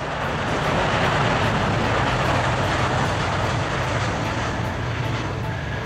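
Boeing 777-9's GE9X turbofan engines during landing and rollout: a steady rushing jet noise over a low rumble that swells about half a second in. A faint thin whine joins near the end.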